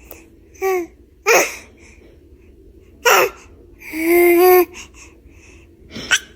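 A baby sneezing in several short, sharp bursts, with a brief drawn-out pitched baby vocal sound about four seconds in.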